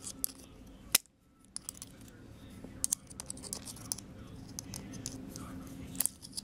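Small clicks and clinks of pliers and plastic and metal parts being handled while an RC car's wheel and hub are refitted, the sharpest about a second in and near the end, over a low steady hum.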